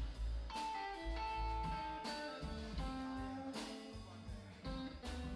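Background music with guitar and a steady bass beat.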